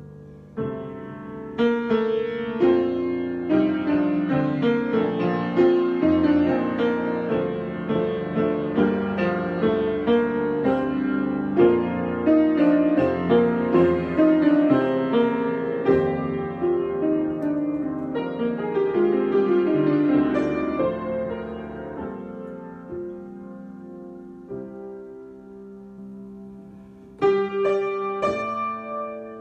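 Solo piano improvisation: after a quiet opening, a busy stretch of many notes in the middle register, thinning to sparse, quieter notes near the end, then a loud chord struck just before the end.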